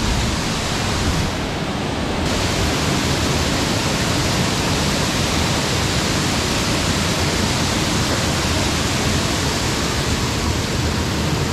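Steady rush of water falling and splashing from the sprays and spouts of a children's water-play structure into a shallow splash pool.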